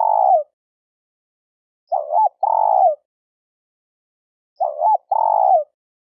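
Spotted dove cooing: a repeated two-part phrase, a short hooked note followed by a longer falling coo, coming about every two and a half seconds.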